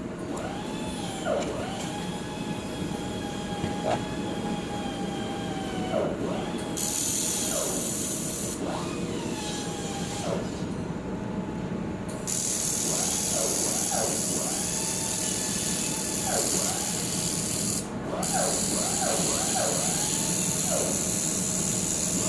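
Handheld air-cooled laser welder with a dual wire feeder in use: a steady machine hum with a motor whine that keeps dipping in pitch and coming back, as the wire feed starts and stops. A loud hiss comes in briefly about seven seconds in, then runs again from about twelve seconds on, with a short break near eighteen seconds, as the welding passes run.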